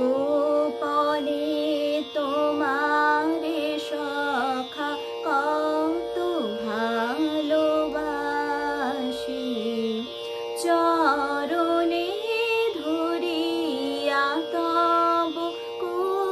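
A young woman singing solo in Bengali: a slow melody with slides and ornaments over a steady held drone note.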